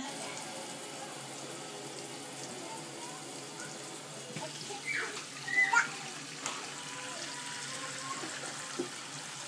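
Water running steadily from a faucet into a stainless steel trough sink while a toddler washes her hands under the stream. A child's voice makes a couple of short sounds about five seconds in.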